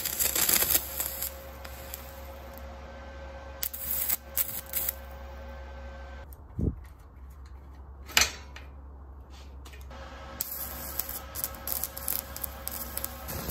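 Electric arc welder crackling and sputtering in several short bursts over a steady low hum, the longest run near the end, as steel disc-brake brackets are tack-welded onto a steel bicycle frame.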